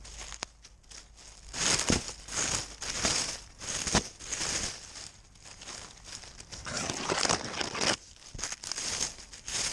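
Rustling and crinkling picked up by a GoPro strapped to a cat on the move: repeated scuffing of fur, harness and paws, about two a second, with a couple of sharp clicks.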